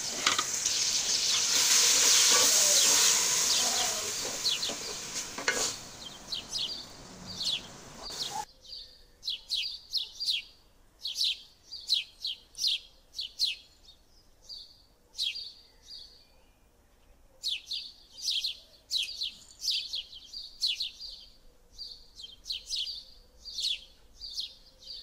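Onion and tomato masala sizzling in hot oil in an aluminium pot as it is stirred, loudest in the first few seconds. After about eight seconds the sizzle cuts off abruptly, leaving only bursts of short, high chirps of small birds, several a second.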